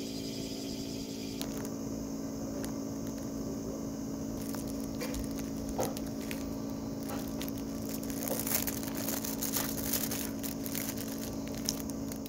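Aluminium foil and a plastic bag crinkling and rustling as a pastry is untied and unwrapped by hand, the crackling growing denser near the end, over a steady low hum.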